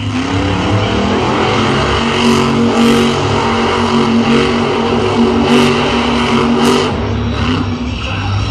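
Monster truck's supercharged V8 engine running loud and hard under throttle as the truck spins through the dirt.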